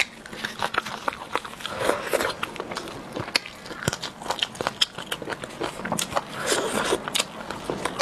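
Close-miked eating of steamed chicken: chewing with wet lip smacks and many sharp mouth clicks.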